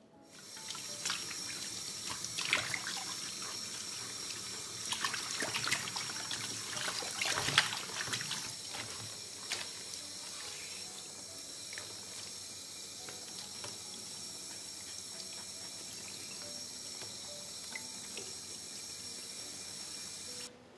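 Water running from a tap, with scattered clicks and knocks of things being handled under it in the first several seconds. The flow starts and stops abruptly.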